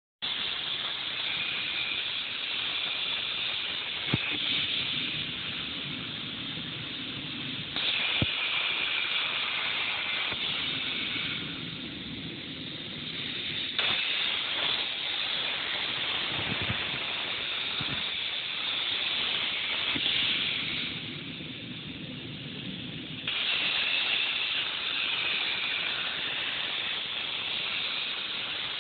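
CNC plasma cutter's torch cutting metal plate: the plasma arc and its air jet make a steady, loud hiss. The level and tone shift abruptly a few times, and there are a couple of sharp clicks.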